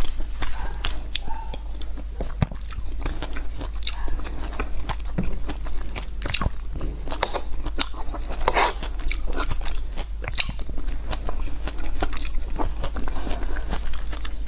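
Close-miked eating: a person biting and chewing crunchy food, with many sharp, irregular crunches.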